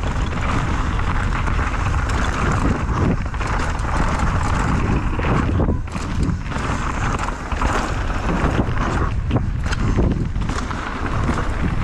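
Mountain bike descending a rough trail at speed: continuous rumble of wind on the microphone, with the tyres and frame rattling and clattering over the ground.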